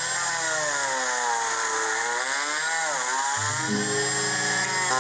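Dremel rotary tool with a small wire-brush attachment running against metal, scrubbing stray paint off a sewing machine's hand-wheel shaft. Its whine sags in pitch as it is pressed into the work, around two and three seconds in, and picks up again.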